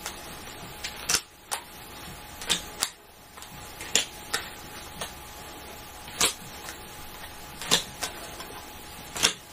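Playing cards being dealt in pairs from a hand-held deck onto piles on a table: sharp, irregularly spaced clicks and slaps, about nine of them, roughly one a second.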